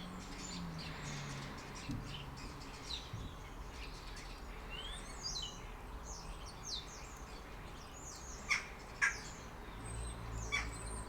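Small birds chirping and calling in the background: many short high chirps and quick sliding notes, with two sharper, louder notes about eight and a half and nine seconds in, over a faint low hum.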